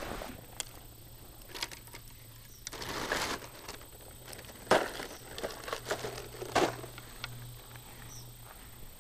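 A thin plastic bag crinkling and rustling in irregular bursts as it is handled, with a couple of sharper clicks or knocks in the middle.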